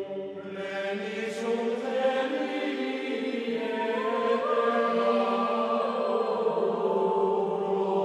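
Slow background music of long held notes with chant-like voices.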